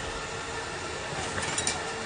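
A steady hiss of background noise, with a few faint scraping ticks about three-quarters of the way through as a knife works on a red sea bream.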